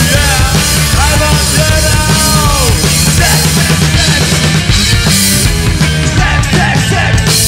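A rockabilly-style punk band playing loud and fast live: drum kit, electric guitar and bass, with a singer's voice over it at times.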